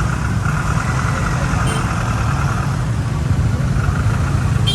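A large vehicle's engine running steadily with a low, continuous rumble.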